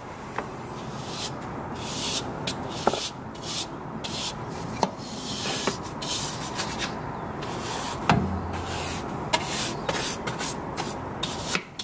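Stiff-bristled snow brush sweeping snow off a Weber Q grill lid in quick, repeated scraping strokes, bristles swishing through the snow and rubbing over the lid.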